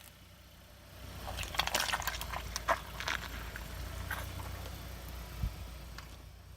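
Car tyre rolling over and crushing crunchy objects: a dense run of crackling and snapping starts about a second in and lasts a couple of seconds, with a few more snaps later. The car's engine rumbles low underneath.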